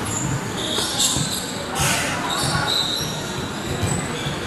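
Indoor basketball game in play: the ball bouncing on the court and sneakers squeaking on the floor, with voices in the background.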